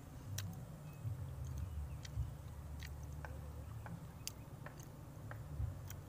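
A man chewing food with faint, scattered mouth clicks over a low, steady rumble.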